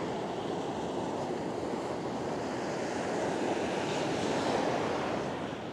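Steady wash of surf breaking on the beach, easing off near the end.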